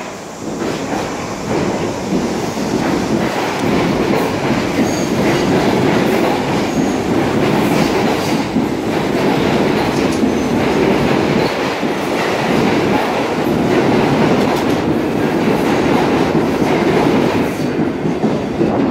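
New York City subway train running past the platform: a loud, steady rumble with steel wheels clattering over the rail joints. It builds over the first second or two and cuts off sharply at the end.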